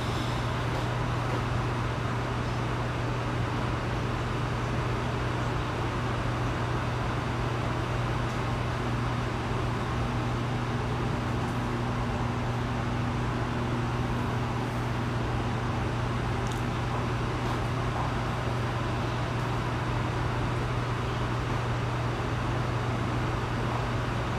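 A steady low hum over an even background hiss, unchanging throughout, with a faint higher tone joining it for a few seconds in the middle.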